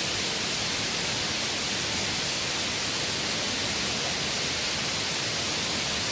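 Tegenungan Waterfall pouring: a steady rush of falling water, loud enough to drown out voices.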